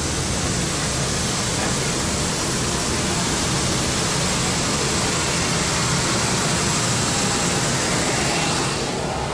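Steady loud jet-aircraft roar, a hiss-heavy whoosh on the apron beside a parked Airbus airliner, falling away sharply near the end.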